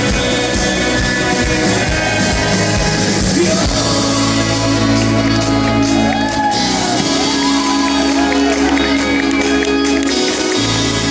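Live rock band playing at a festival, with a vocal melody over guitars and a steady bass, and crowd shouts mixed in. The bass drops out for a few seconds near the end, then comes back.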